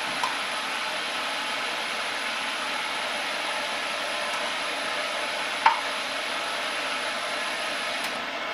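Grizzly metal lathe running steadily with its spindle turning during a final threading pass, a steady mechanical hiss with a thin high whine that cuts off near the end. A short sharp tick sounds about two-thirds of the way through.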